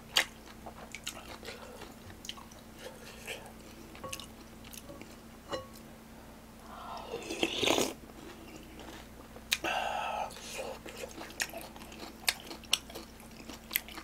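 Close-miked eating of spicy ramen: chewing, a loud slurp from the spoon about seven seconds in, and small clicks of the spoon against the bowl.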